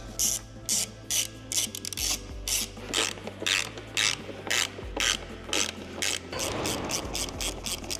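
Ratchet wrench clicking as it works a bolt, in even strokes about two and a half a second, turning into a quicker, quieter run of clicks near the end.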